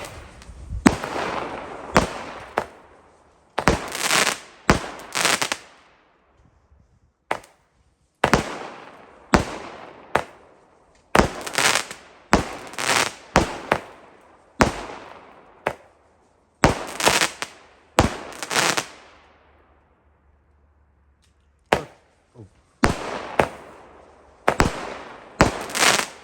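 Weco Viking firework battery firing: a long string of sharp bangs, often two or three close together, each trailing off over a second or two, with two short pauses of near quiet partway through.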